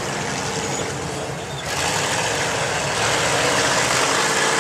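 Rock racing buggy's engine running hard under load as it crawls up a boulder climb, growing louder about a second and a half in.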